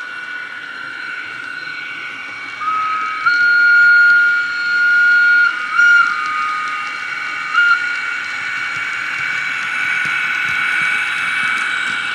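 Recorded DCC sound from a LokSound decoder in a Heljan ES1 model electric locomotive, played through the model's small speaker. A steady electric running hum carries throughout. From about two and a half seconds in, the decoder sounds a two-tone whistle: a lower note stepping up to a long higher note, then short high blips around a held lower note until about eight seconds in.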